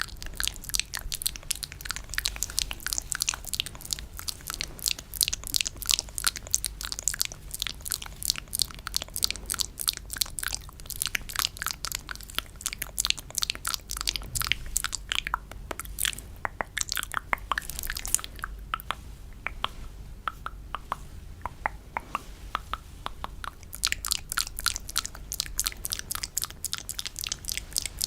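Close-miked ASMR mouth sounds: rapid wet clicks and smacks, several a second, thinning out for a few seconds past the middle.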